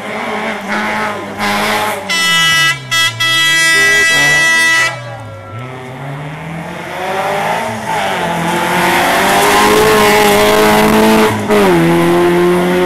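Rally car engines working hard through a hairpin: revs falling and rising as a car brakes in and pulls out, a loud high steady engine note, then a car accelerating with rising revs and a drop for an upshift about eleven and a half seconds in before the revs climb again.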